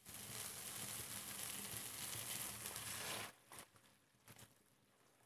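Hot pan of fried coconut-masala paste sizzling steadily as hot water is poured in, cutting off suddenly about three seconds in.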